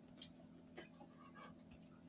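Near silence: room tone with a faint steady low hum and a few faint, scattered clicks.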